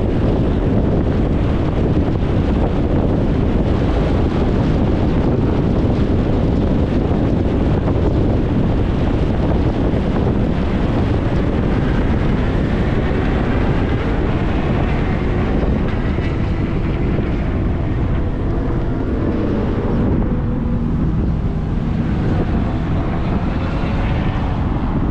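Car road noise: steady tyre rumble and wind hiss of a car driving on the road, with a faint engine note that glides in pitch during the second half.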